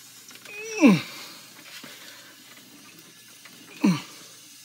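Two short squeals that drop sharply in pitch, one about a second in and one near the end, from the water-pressurised drain bladder rig as its pressure is lowered and it is dragged through the sewer pipe, over a faint steady hiss of water.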